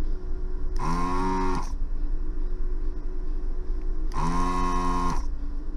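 Hikari HK915 desoldering station's vacuum pump triggered twice, each time a steady buzzing hum of about a second that spins up and winds down, sucking molten solder from a capacitor's joints. A faint steady hum lies underneath.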